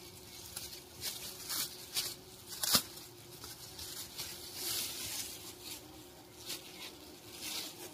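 Black plastic garbage bag rustling and crinkling in short bursts as a wooden nest box is pulled out of it, with one sharp crackle about three seconds in. A faint steady hum of bumblebees runs underneath.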